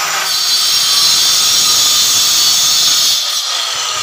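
Handheld electric marble cutter running at full speed with its blade cutting through a white marble strip: a loud, steady high-pitched whine with grinding, easing a little about three seconds in.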